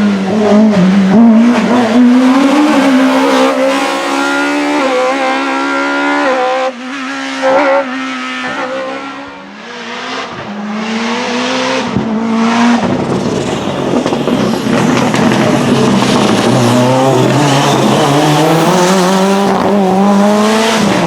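Competition car engine revving hard during a slalom run, the pitch climbing and dropping again and again with throttle and gear changes, then building up once more near the end.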